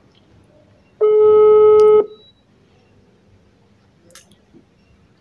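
Ringback tone from a mobile phone on speakerphone as an outgoing call rings: one steady, slightly buzzy beep about a second long, starting about a second in.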